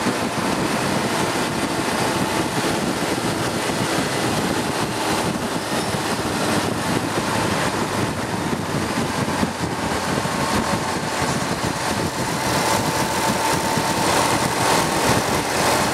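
Steady rush of wind and road noise with an engine running underneath, heard from a road vehicle travelling at a steady speed. A faint steady tone comes in about two-thirds of the way through.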